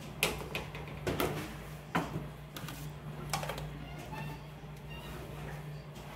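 Plastic food containers knocking and clattering as they are set down and stacked on a cupboard shelf, a handful of sharp knocks in the first half, over a steady low hum.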